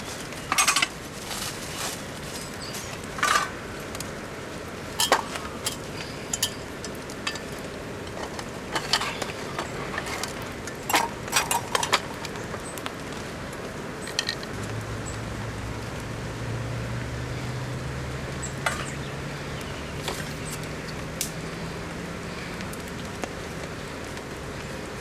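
Metal cookware and utensils clinking and knocking a dozen or so times in the first half, over a steady hiss of rain. About halfway through, a low hum comes in and slowly rises in pitch.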